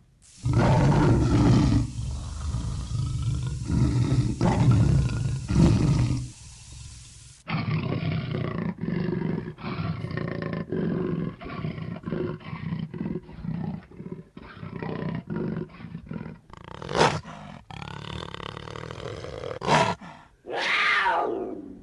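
Big cat roaring and growling: a string of separate recordings joined with abrupt cuts. Deep rough growls run through the middle, and a roar falls in pitch near the end.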